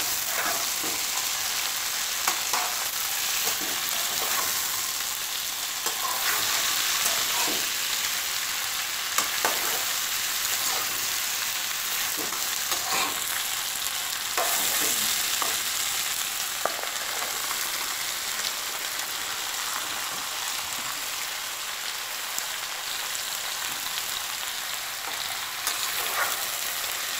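Chopped vegetables sizzling in hot oil in a kadai while a metal spoon stirs them, with scattered clinks and scrapes of the spoon against the pan over a steady frying hiss.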